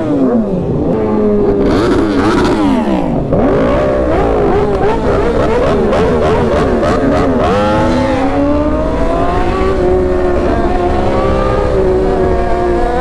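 Several sport motorcycle engines revving hard and accelerating together. The pitch climbs and drops sharply several times in the first few seconds as gears change, then rises more slowly and holds.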